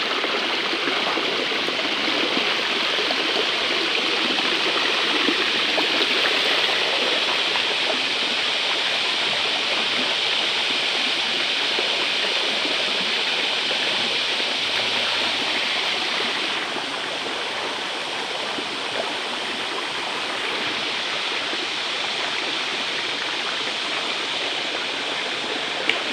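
Shallow, fast river rushing over rocks: a steady rush of water, a little softer from about two-thirds of the way through.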